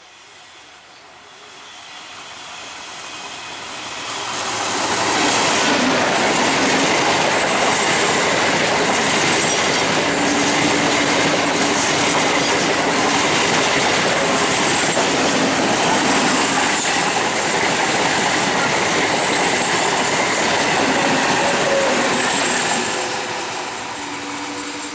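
An electric MEMU passenger train approaches and passes close by, its wheels running over the rails with a loud, dense rush of noise. The sound builds over the first five seconds, stays loud and even while the coaches go by, and drops off about 23 seconds in.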